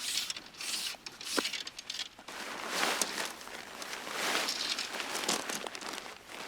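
Irregular rustling and crunching in a run of uneven bursts, with a brief squeak about a second and a half in.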